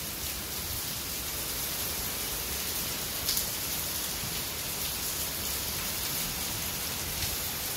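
Heavy rain pouring down steadily as an even, dense wash of noise, with one brief tap about three seconds in.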